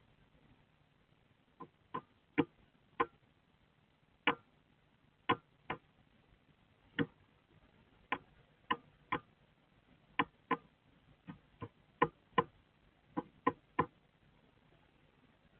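Eurasian tree sparrow striking an unhatched egg hard and repeatedly with its beak: about twenty sharp taps, spaced irregularly and often in quick twos and threes, as it tries to crack the egg open.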